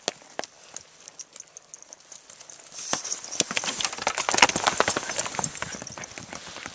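Hoofbeats of a ridden horse moving fast over rocky dirt, a few scattered hits at first, then a close, dense run of them about three to five seconds in that fades as the horse moves off.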